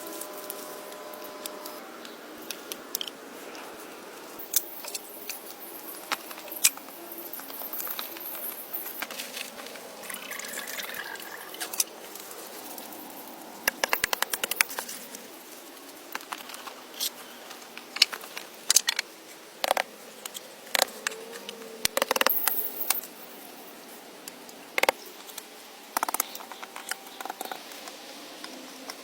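Irregular sharp clicks and knocks with short bursts of scraping: hand work on building materials for a bushcraft shelter.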